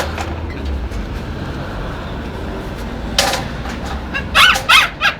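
Dog giving short, high, duck-like squeaking squeals, a quick run of them near the end, the loudest two close together, after a rougher burst a little earlier. A steady low rumble sits underneath.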